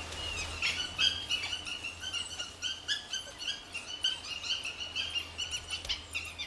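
Dhole pups begging for food: many short, high-pitched squeals and whines in quick succession.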